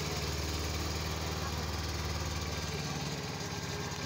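Small petrol engine of a long-tail boat motor running steadily, driving the boat along.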